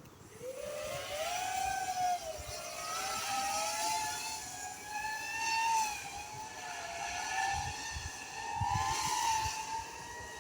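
Motors and propellers of an iFlight Nazgul Eco 5-inch FPV quadcopter in acro flight. They start almost silent with the throttle cut, then a whine rises in pitch and keeps wavering up and down as the throttle changes.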